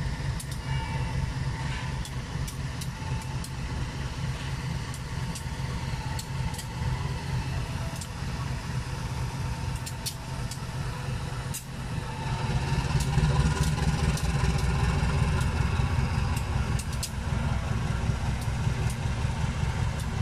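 Diesel-electric locomotive pulling a passenger train slowly away from the platform: a steady low engine rumble with scattered light clicks, growing louder about twelve seconds in.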